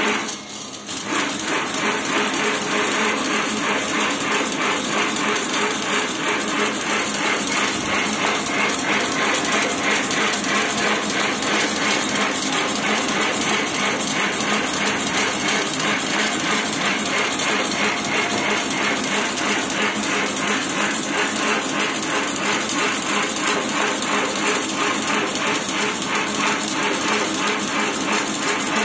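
Automatic agarbatti (incense stick) making machine running, a rapid steady mechanical clatter as it feeds bamboo sticks and extrudes coated incense sticks. It comes up to full speed about a second in.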